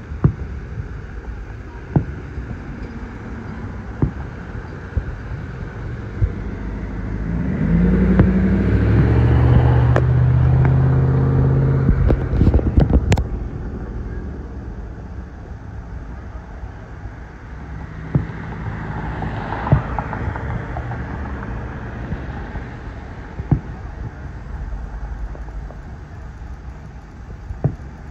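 Distant aerial fireworks banging, a single sharp crack every few seconds. A car passes close by on the road, loudest about a third of the way in, and a second vehicle passes more quietly about two-thirds of the way in.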